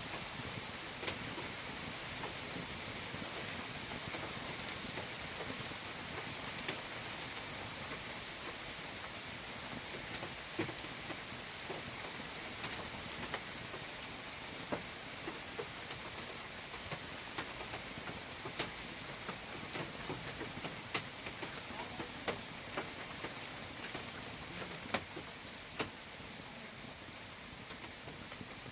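Fire burning in a fireplace: a steady hiss with sharp crackles and pops at irregular intervals, a few seconds apart.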